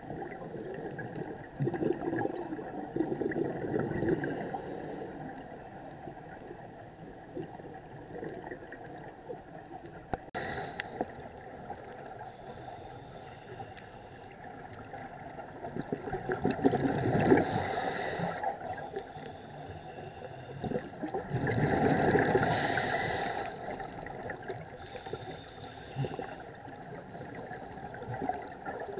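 Muffled underwater noise with a scuba diver's exhaled bubbles from a regulator, surging several times as gurgling rushes.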